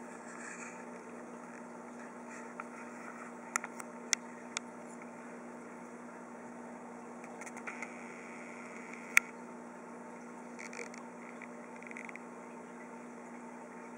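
Steady hum and hiss of running aquarium equipment, with the bubbling of an air curtain in the tank. A few sharp clicks break in, the loudest about nine seconds in.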